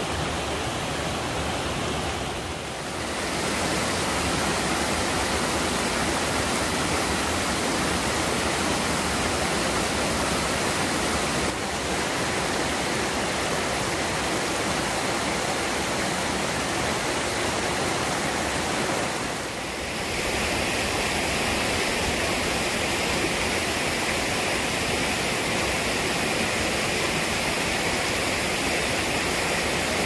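Mountain stream rushing over mossy boulders in small cascades, a steady full rush of water. The rush dips briefly twice, and after the second dip its tone turns brighter and hissier.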